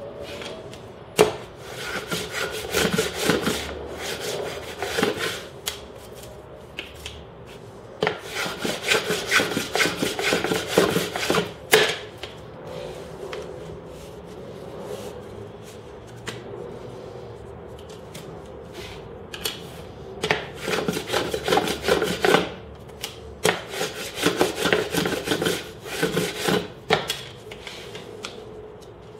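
Hand block plane shaving a thin wooden strip: three spells of quick scraping strokes with pauses between them, and a few sharp knocks of wood on the bench.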